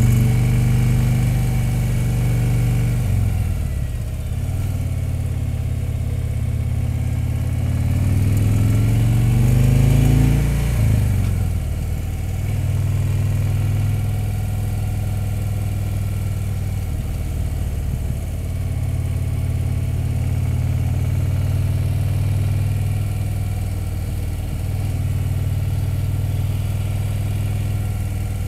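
Heavy touring motorcycle's engine running on the road, heard from the rider's seat. The revs climb for several seconds, fall sharply about ten seconds in, then hold steady.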